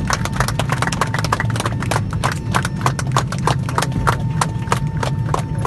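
A group of passengers applauding in an airliner cabin: many separate hand claps in an uneven patter, over the cabin's steady low drone.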